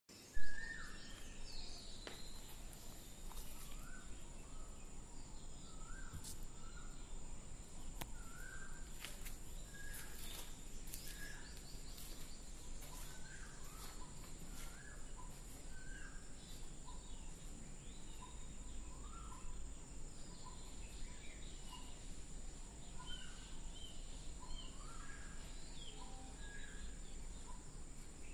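Outdoor ambience of birds calling in many short, rising chirps over a steady high hiss and a low rumble, with one sharp knock just after the start.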